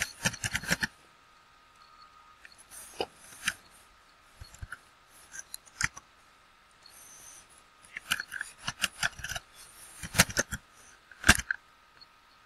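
Computer keyboard typing: short runs of key clicks with pauses between them, a quick run about a second in, scattered single clicks, then denser clusters near the end.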